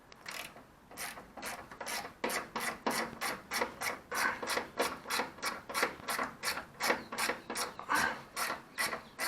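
Hand ratchet wrench being worked back and forth, a steady rasping click about three strokes a second, undoing the bolt that holds the ABS pump.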